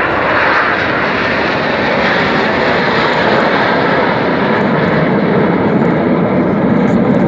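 BAE Hawk jet trainers' Adour turbofan engines, a loud roar as they fly past, the roar sinking in pitch as they go by.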